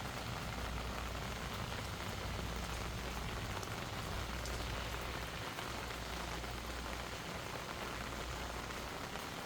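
Steady rain falling, with the occasional faint drop tick.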